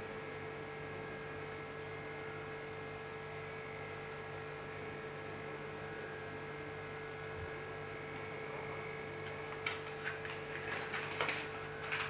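Steady electrical hum at a low level, with a few faint clicks and rustles near the end.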